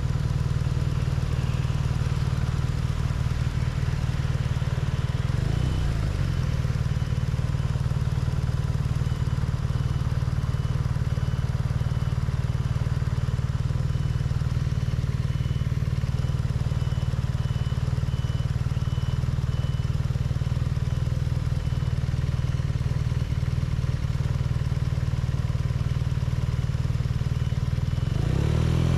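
BMW R nineT's air/oil-cooled boxer twin running at a steady engine speed, its note holding an even pitch; it starts to change just at the end.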